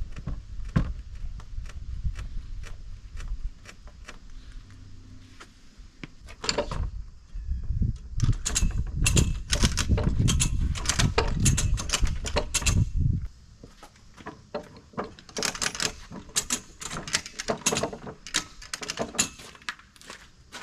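Repeated knocking on timber: scattered knocks at first, then quick runs of strikes, about three or four a second, in two stretches, over a low rumble.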